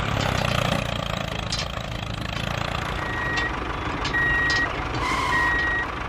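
Steady engine rumble of a vehicle, with three short high beeps, each about half a second long and about a second apart, in the second half.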